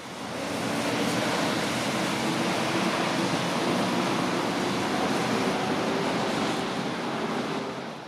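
Steady rushing water, an even roar that fades in over the first second and fades out near the end.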